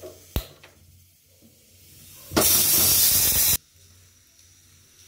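Gas stove burner knob clicking as it is turned, then about two seconds later a loud steady hiss for just over a second that cuts off abruptly.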